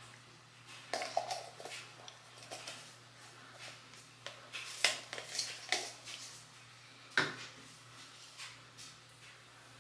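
Scattered light clicks and knocks of small objects being handled and set down on a bathroom counter, the sharpest one a little after seven seconds, over a steady low hum.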